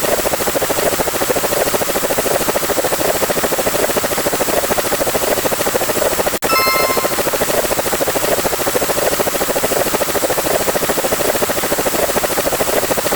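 A looping sound effect: a steady, rapidly fluttering rushing noise that cuts out and restarts once, about six seconds in, with a brief high beep at the restart.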